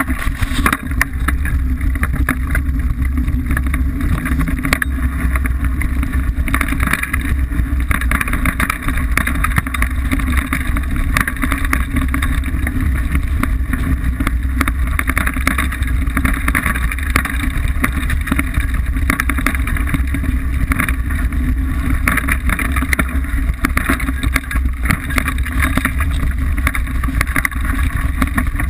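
Liteville 301 full-suspension mountain bike descending a rocky singletrack: a steady rumble of the tyres over loose stones, with a constant clatter of small knocks and rattles from the bike.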